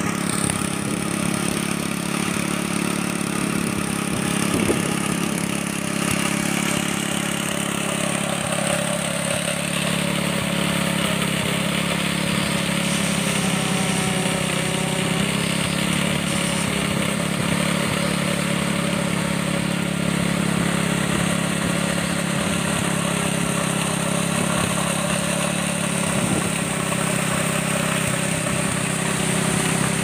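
Small gasoline engine of a portable concrete vibrator running steadily at constant speed, driving the vibrator's flexible shaft during a concrete pour.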